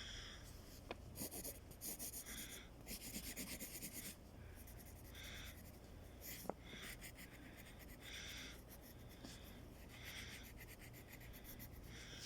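Faint pen or pencil writing on paper: repeated short scratchy strokes, in quick runs about one to four seconds in, with a single sharp click about six and a half seconds in.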